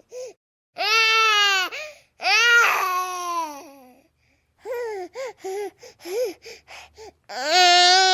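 Baby crying: two long, high wails that fall off at their ends in the first four seconds, then a run of short, choppy sobs, and another long wail near the end.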